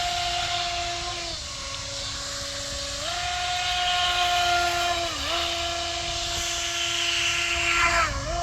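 DEERC brushless RC race boat running on a 3S battery: the electric motor whines at a steady pitch that drops and comes back up as the throttle is eased off and opened again, over the hiss of the hull and spray on the water. The pitch drops about a second in and recovers about three seconds in, dips briefly near the middle, then dips again near the end, with the hiss loudest just before that last dip.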